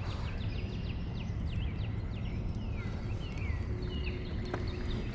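Wild birds calling: a rapid run of short, high, falling chirps, then a few curving call notes, over a steady low rumble.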